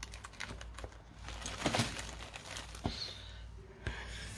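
Paper craft materials being handled: rustling, with a few light clicks and knocks.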